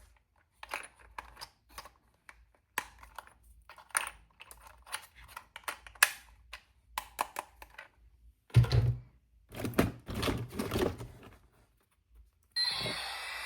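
Toy packaging being handled and opened: a quick, irregular run of small clicks and crinkles, with two louder rustling bursts about two-thirds of the way through and a steadier hissing sound starting near the end.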